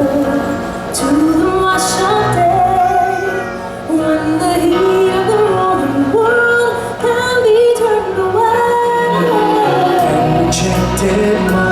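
A woman singing a flowing melody over music with a steady bass.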